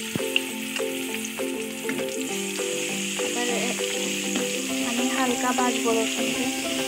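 Garlic sizzling in hot oil in an aluminium karahi, stirred with a spatula, with background music playing.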